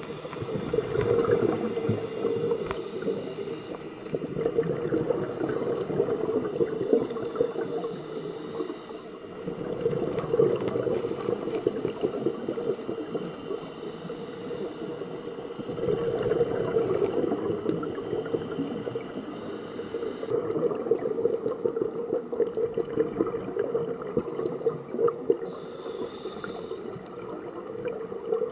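A scuba diver breathing through a regulator underwater, heard through an underwater camera housing: bubbling, gurgling exhalations that swell and fade in slow cycles every few seconds.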